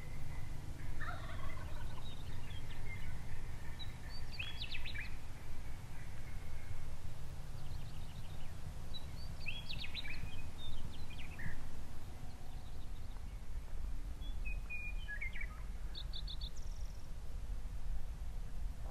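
Wild Merriam's turkey gobbler gobbling several times, a few seconds apart, with small bird calls between, over a steady low rumble.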